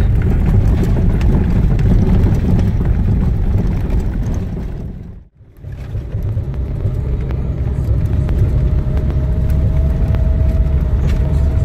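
Off-road vehicle driving over a rough dirt road, a steady low rumble heard from inside the cabin. It fades out about five seconds in and comes back, and a faint steady whine joins it a few seconds later.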